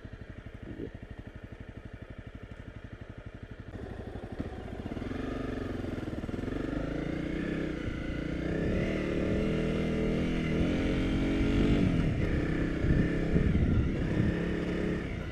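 Honda CRF250 Rally's single-cylinder four-stroke engine running low and even for the first few seconds, then pulling away louder, its revs rising and falling as the bike rides on.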